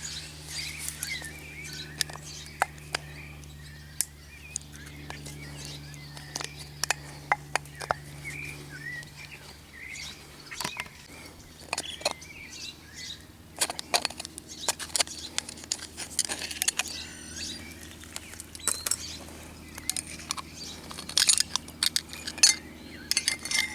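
Metal tools tapping, clicking and clinking irregularly against a car's rear wheel hub as the old grease seal is pried and knocked out. Birds chirp in the background.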